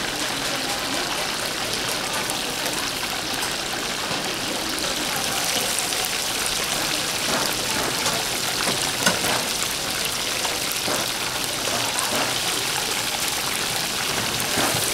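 Chicken deep-frying in hot oil: a steady, dense sizzle and crackle, with one brief knock about nine seconds in.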